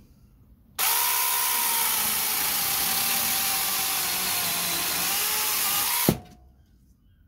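Battery-powered mini chainsaw on a Makita 18V battery cutting through a small log. It runs for about five seconds with a steady motor whine that dips slightly in pitch as it bites, then stops suddenly with a sharp knock.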